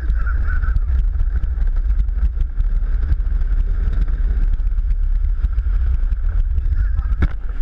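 Luge cart rolling fast down a concrete track, its wheels rumbling and rattling with frequent small clicks, under heavy wind buffeting on a head-mounted camera's microphone.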